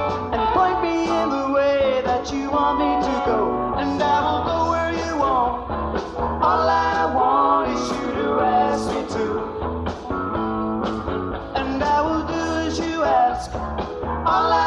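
Rock band playing live in an instrumental passage: a melodic lead line over bass and drums.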